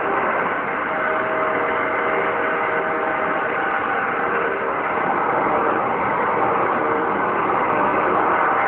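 Hoover Tempo Widepath bagged upright vacuum cleaner running steadily: a constant motor whine with several steady tones over an even hiss.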